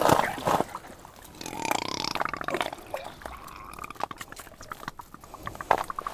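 Water sloshing and gurgling in an ice-fishing hole as a lake trout is hand-landed through it, with scattered knocks and splashes from the fish and the angler's hand.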